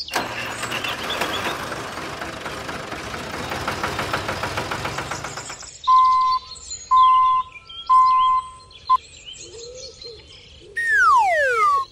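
Birds chirping over a steady hiss for about six seconds, then four short, even electronic beeps about a second apart, then a falling whistle-like glide near the end.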